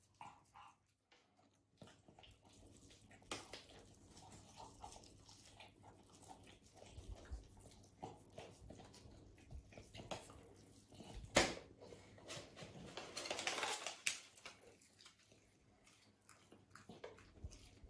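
A beagle puppy chewing and smacking on a burger held out by hand, with scattered small clicks of its mouth and one sharp click a little past the middle.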